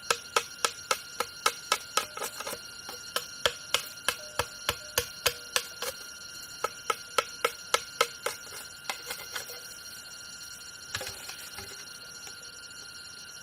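Sharp knocks in a quick, even rhythm, about four a second, in three runs with short breaks, trailing off and followed by one last knock, over a steady high-pitched drone.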